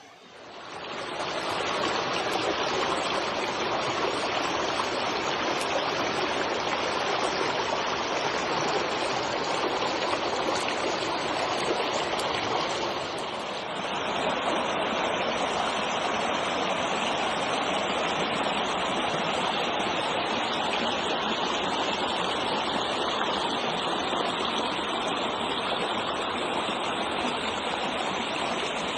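Rushing water of a stream, a steady dense rush that swells up over the first couple of seconds and briefly dips about halfway through.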